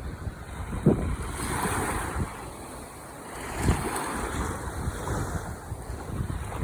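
Ocean waves surging and washing on the shore, swelling twice, with wind buffeting the microphone in short low thumps.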